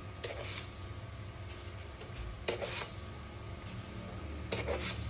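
A steel spoon clinking and scraping against a steel kadhai as sugar is spooned into simmering carrot halwa: three short sounds, just after the start, about halfway and near the end, over a low steady hum.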